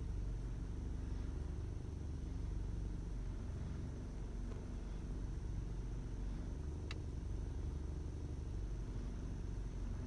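Steady low rumble of a car's engine idling, heard from inside the cabin, with a single short click about seven seconds in.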